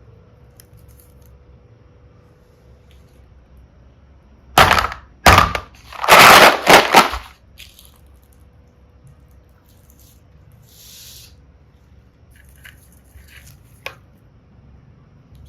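Several loud crackling, rattling bursts over about three seconds, starting about four and a half seconds in, from small plastic pieces (mini hearts and seashells) being scooped and handled. A few faint clicks of the pieces follow later.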